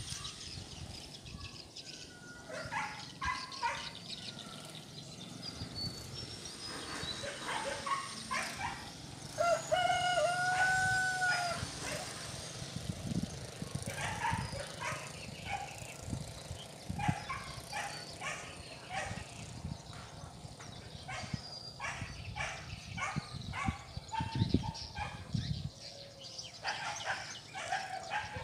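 Animal calls: one long pitched call that rises and falls, lasting about two seconds near the middle and loudest of all, amid scattered short calls and clicks.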